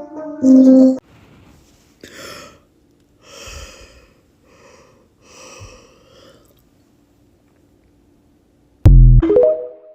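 A loud musical note cuts off about a second in. It is followed by several faint, short breaths or gasps from a person, spaced about a second apart. Near the end comes a loud, sudden click and a brief burst of rising tones.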